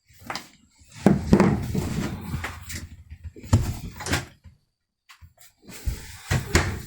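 Knocks, clunks and rattling of things being handled during wiring work, with a dense stretch of rattling about a second in and single sharp knocks around the middle and near the end.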